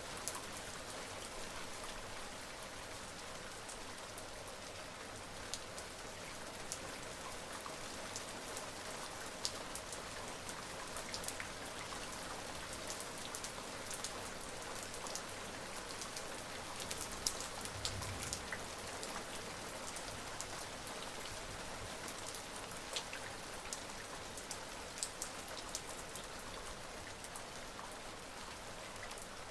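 Steady rain falling, an even hiss with many individual drops ticking sharply on a surface.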